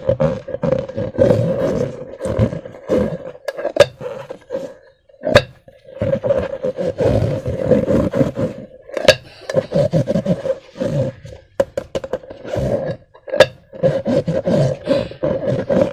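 Hands squishing and working slime and rubber balloons: continuous wet squelching and rubbing with a recurring low squeaky tone, broken by several sharp clicks.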